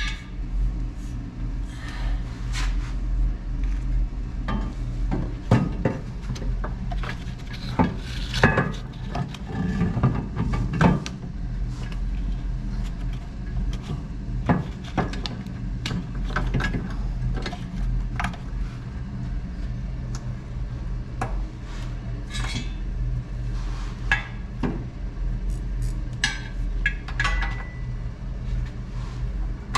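Steel frame section being worked into place on a Jeep frame: irregular metal clanks, knocks and rattles, some louder ones in the first half, over a steady low hum.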